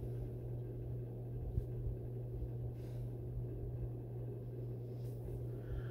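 Room tone with no speech: a steady low hum.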